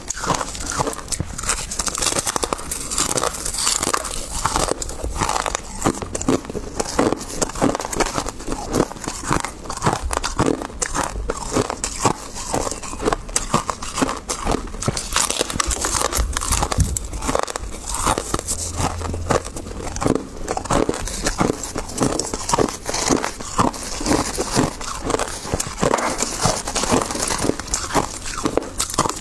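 Crushed ice crunched and chewed close to the microphone: a dense, unbroken run of crisp crunches several times a second, mixed with the crackle of a gloved hand scooping and squeezing the crushed ice.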